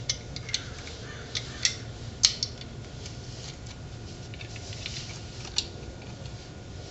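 Light metallic clicks and clinks from drum brake shoes, springs and hardware being handled and fitted by hand. They come irregularly, about seven in all, with the sharpest a little over two seconds in.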